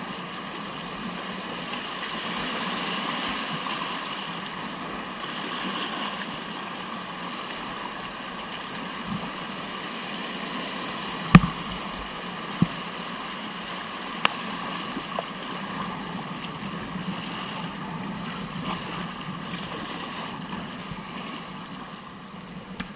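Mountain river whitewater rushing steadily, heard from a kayak, with a few sharp knocks, the loudest about eleven seconds in.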